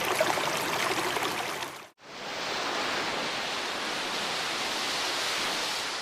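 Rushing noise like running water or static. It cuts out abruptly about two seconds in, then swells back up smoothly and begins to fade near the end.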